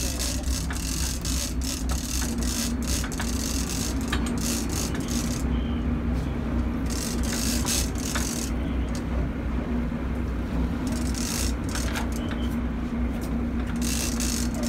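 Boat engine running with a steady low drone, while a big trolling reel is cranked in spells, its gears ticking rapidly as line is wound in on a fish.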